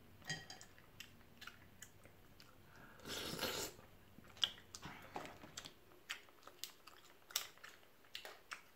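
Close-up chewing and lip-smacking on seafood boil, with scattered small clicks and cracks of crab and crawfish shells being picked apart by hand, and a louder burst lasting about half a second around three seconds in.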